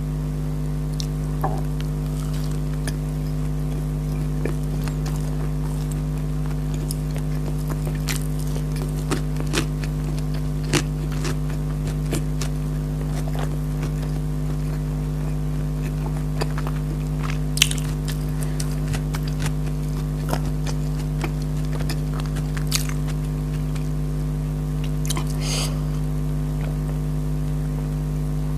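Close-miked eating sounds: irregular bites, chewing and small crunching clicks, over a steady low hum.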